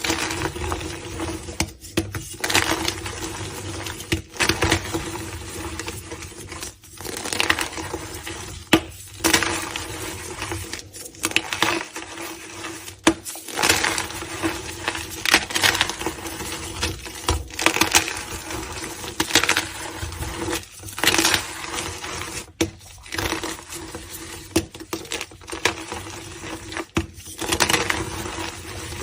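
Blocks of gym chalk being crushed and crumbled, a crisp crunching that comes in repeated strokes about a second or two apart, with short breaks between.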